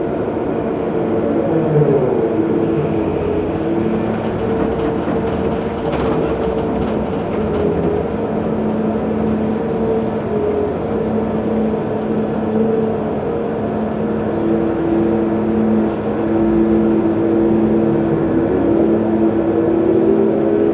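Liebherr R9800 mining excavator's engines and hydraulics running under load, heard inside the operator's cab as it digs and swings: a steady drone with several held tones that slide in pitch about a second in and again near the end.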